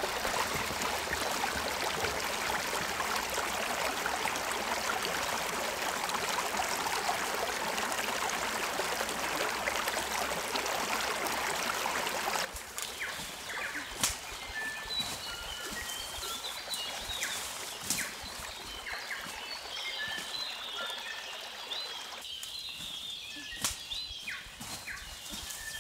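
A small stream trickling over rocks, an even rushing that cuts off abruptly about halfway through. Then quieter bush ambience with short high bird chirps and scattered small clicks.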